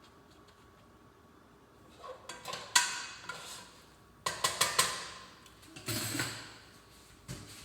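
Kitchen clatter: dishes and utensils clinking and knocking, one clink ringing briefly, then a quick run of clicks, a duller scrape and a last knock near the end.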